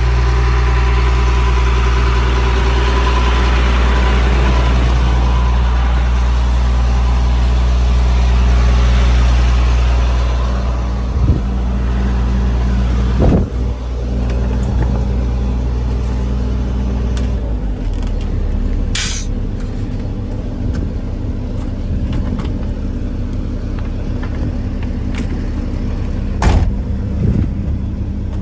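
Chevrolet C6500 rollback truck's engine idling steadily. A few thumps come around the middle and near the end, and the idle drops a little in level after the first thumps.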